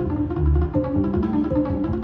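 Live jazz band music: an acoustic guitar and an upright bass playing a repeating figure.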